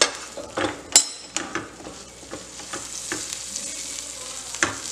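Butter sizzling on a hot tawa as halved pav rolls are pressed down into it, with a few short scraping and tapping strokes and a sharp click about a second in.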